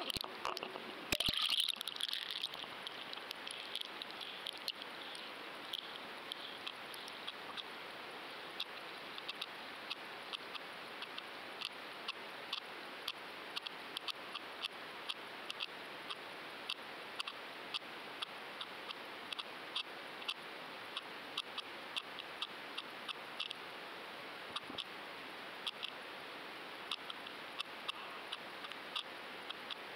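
Underwater sound picked up by a GoFish Cam inline camera sinking on a fishing line: a steady hiss of water with many short, sharp, irregular clicks, and a louder rush of noise about a second in.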